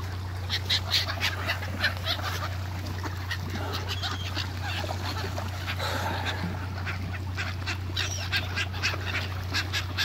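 A flock of Canada geese honking, many short calls overlapping in quick succession, over a steady low hum.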